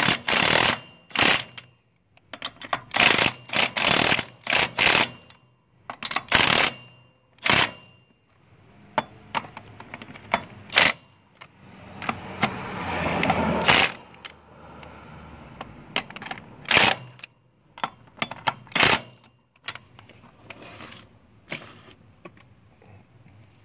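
DeWalt DCF899 20V brushless cordless impact wrench working trailer-wheel lug nuts, run in many short bursts with one longer run about halfway through and a couple more bursts after it.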